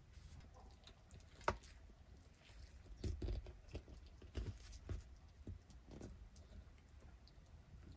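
A utensil clicking and scraping against a small clay rice pot as the cooked rice is stirred and lifted out: one sharp click about a second and a half in, then a cluster of knocks and scrapes in the middle.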